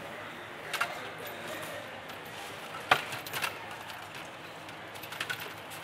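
Table tennis ball ticking against paddles and the table: a few sharp clicks, the loudest about three seconds in followed by a quick run of lighter ones, over steady room noise.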